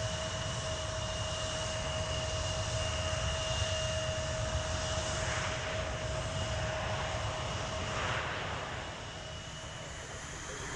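Boeing 787 Dreamliner's GE GEnx turbofans running at taxi power: a steady jet whine of two high tones over a low rumble, a little quieter near the end.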